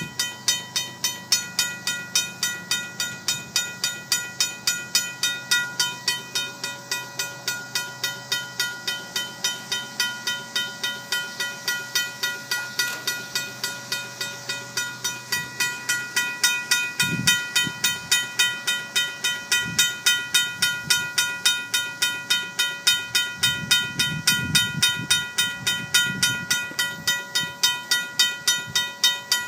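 RACO mechanical crossing bell ringing with evenly spaced, rapid strikes, while a train of empty grain hopper cars rolls past. From about halfway through, low knocks and rumbles from the cars' wheels on the rails come in under the bell.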